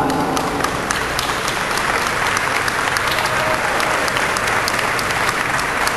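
Audience applauding steadily, a dense patter of many hands with sharper individual claps standing out.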